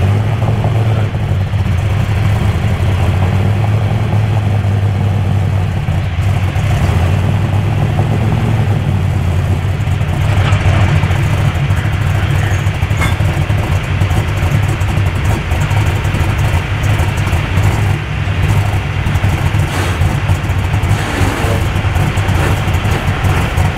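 Unlimited super stock pulling tractor's engine running loud at a steady pitch.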